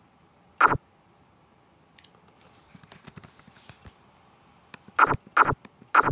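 Chess program's move sound, a short sharp clack as each move is played on the board: once about half a second in, then three times in quick succession near the end. Fainter clicking comes in between.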